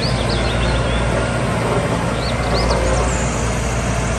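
Diesel engine of a single-drum road roller (soil compactor) running steadily as the machine drives. Birds chirp briefly near the start and again about two seconds in.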